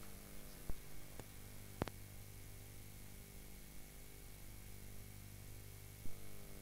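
Steady electrical mains hum from the sound system's microphone, with a few faint knocks of the handheld microphone being handled, the loudest about two seconds in.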